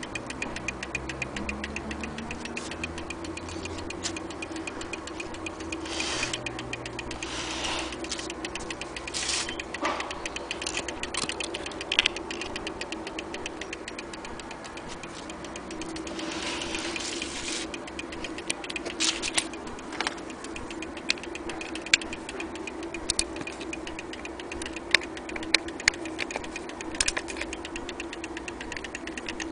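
Vintage Westminster mantel clock movement ticking steadily, with scattered louder sharp clicks over the ticking.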